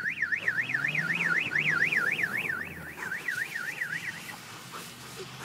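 Police car siren in its rapid yelp mode, a fast up-and-down wail of about four sweeps a second that cuts off about four seconds in, with a low rumble underneath.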